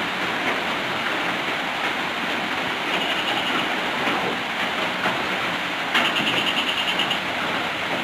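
Steady rain falling, an even hiss. Twice, about three seconds in and again near six seconds, a brief rapid high trill sounds over it.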